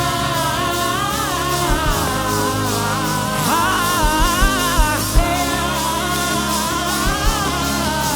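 Live gospel worship band playing, with a steady bass line and kick drum beats, while voices sing a wavering melody over it.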